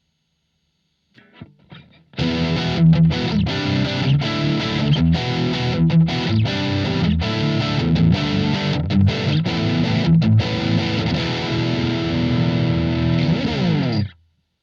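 Electric guitar played through a Blackstar ID Core Stereo 40 amplifier with a distorted, effects-laden tone. A few quiet picked notes lead into about twelve seconds of loud, dense playing, which slides down in pitch and stops abruptly near the end.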